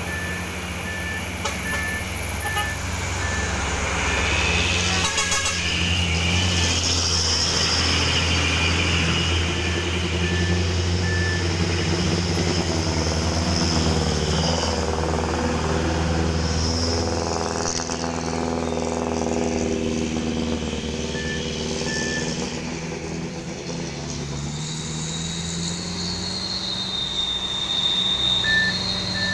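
Diesel trucks and buses passing close by, engines running steadily with a stretch where the engine note rises and falls as a vehicle goes past. Short, evenly spaced high beeps come in a few runs, and near the end a high tone dips and rises as a bus arrives.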